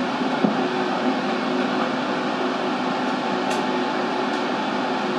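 Steady whir of fans and ventilation in a cinema projection booth, with a couple of constant tones in it.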